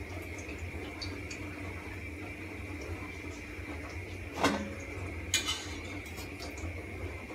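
Metal cooking utensil clinking against a frying pan and plate while pişi are fried and lifted out of the oil. There are two sharp clinks, a little past halfway and again about a second later, over a steady background hum.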